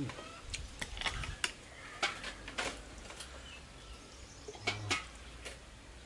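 Scattered light clicks and taps, about a dozen at irregular spacing, from steamed freshwater mussel shells and tableware being handled while eating.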